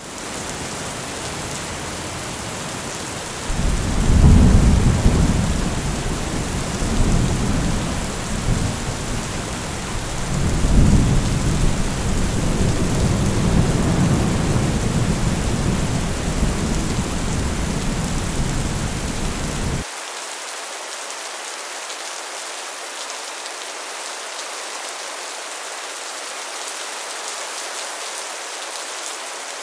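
Heavy rain drumming on a metal roof as a steady hiss, with a long rumble of thunder. The thunder starts a few seconds in, swells twice and then cuts off suddenly about two-thirds of the way through, leaving the rain alone.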